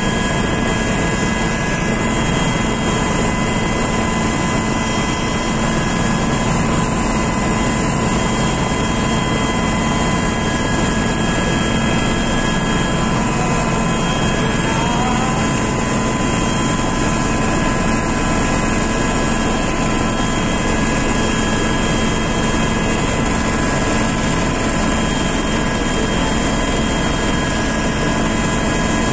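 Steady cabin noise of a turbine-powered aircraft on its landing approach: a constant roar with several steady whining tones, unchanging throughout.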